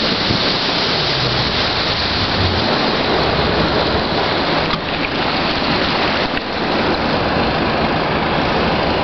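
Steady rush of wind and water noise from a motorboat under way at speed, with its engine running low underneath.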